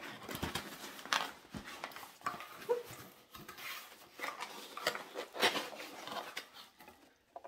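Small cardboard box being opened by hand: irregular rustling, scraping and crinkling as hands dig into its loose packing filler, with light taps and clicks throughout.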